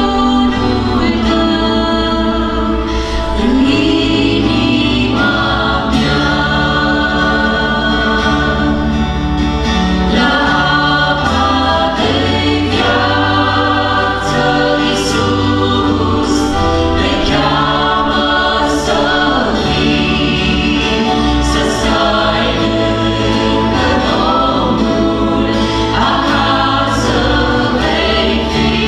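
A small church worship group of men and women singing a gospel song together, held notes in harmony, accompanied by acoustic guitar and electric bass guitar.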